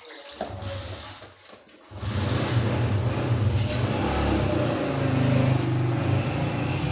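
A steady low motor-like hum with a hiss over it sets in about two seconds in and holds steadily.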